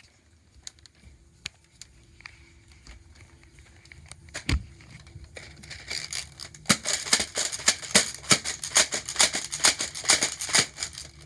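A few scattered clicks, then from about seven seconds in a loud, fast rattle of many small hard clicks, several a second, lasting about four seconds.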